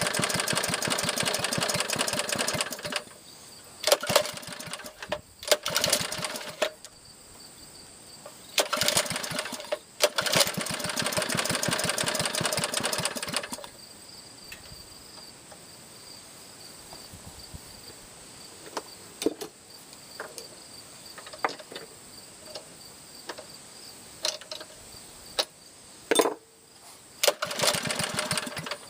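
Small air-cooled Clinton engine running in spurts: it runs for a few seconds, cuts out, fires briefly twice, runs again for about five seconds, then goes quiet apart from scattered sharp pops and clicks, and starts running again near the end.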